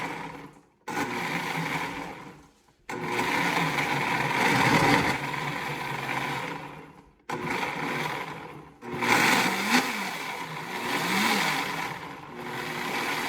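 Countertop blender motor running on a batter of eggs, flour and milk, in several runs of one to four seconds broken by brief stops.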